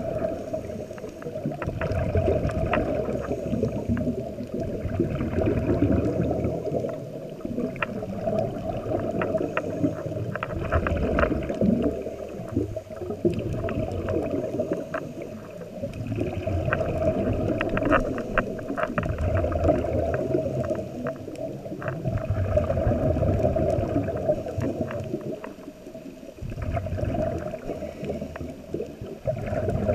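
Scuba diver breathing through a regulator, heard muffled through an underwater camera housing: low rumbling exhaled bubbles that swell and fade every few seconds, with scattered sharp clicks.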